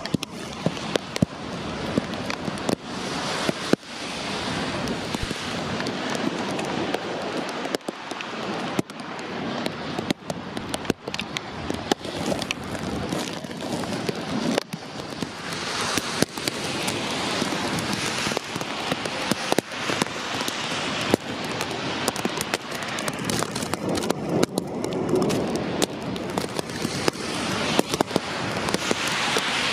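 Rain falling steadily, with many sharp clicks of drops striking close to the microphone.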